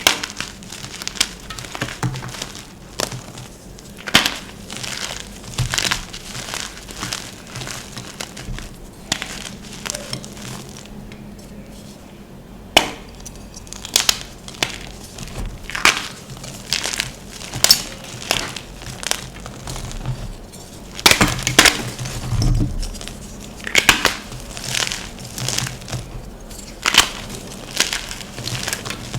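Blocks of gym chalk being crushed and crumbled, making a continuous run of irregular crunches and crackles, a few each second. They are loudest about three-quarters of the way through.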